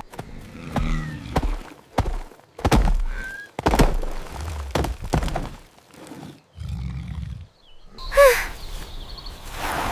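Cartoon sound effects: a run of irregular thuds and knocks, with a short, high, bending squeal about eight seconds in.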